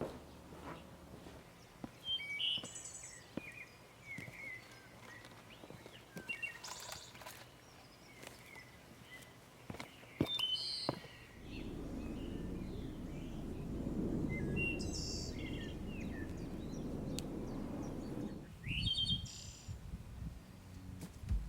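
Small birds chirping and calling outdoors, with scattered light clicks. Past the middle, a low rushing noise comes in for about seven seconds and then stops.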